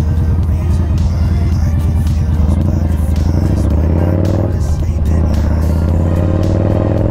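Yamaha Bolt's air-cooled V-twin engine running under way. Its pitch climbs as it accelerates, drops back about four and a half seconds in, then climbs again. Background music plays over it.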